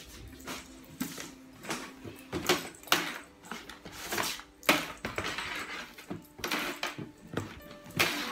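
Cloth wiping over a wooden desk and a printer top in short rubbing strokes, with knocks and clatter as objects are lifted and set back down.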